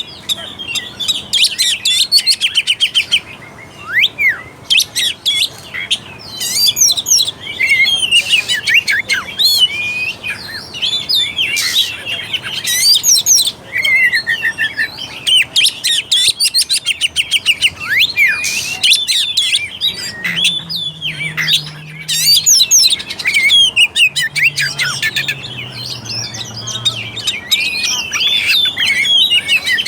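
Oriental magpie-robin (kacer) singing a long, unbroken, fast and varied song of whistles, quick glides, trills and harsh notes. It is the loud, full 'gacor' song used to spur captive magpie-robins into singing.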